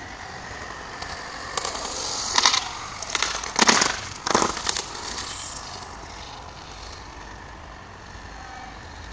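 Skateboard wheels rolling on concrete, growing louder as the boards come close, with four or five sharp clacks of the boards about halfway through, then the rolling dies away.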